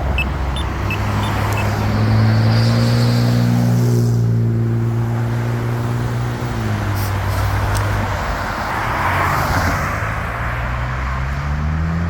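Road traffic: vehicle engines idling with a steady low hum that changes pitch about six and a half seconds in, over tyre and road noise, and an engine revving up near the end as a vehicle pulls away.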